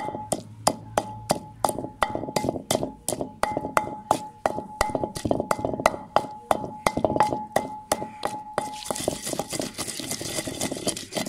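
Wooden pestle pounding chutney ingredients in a clay mortar: sharp knocks of wood on clay, about three a second, with a steady ringing tone under them. Near the end the knocking stops and a steady hiss takes over.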